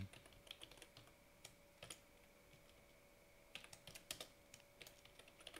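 Faint computer keyboard typing: single keystroke clicks and short irregular runs of keys.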